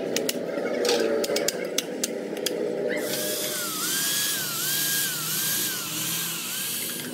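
A few sharp metal taps, then from about three seconds in a hand-held drill driving a valve-seat cutter in a Bedford truck cylinder head, its whine dipping and recovering several times over a steady hiss.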